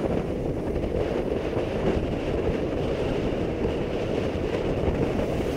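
Steady wind rush on the microphone of a motorcycle cruising at a constant speed, with the motorcycle's engine and road noise running underneath.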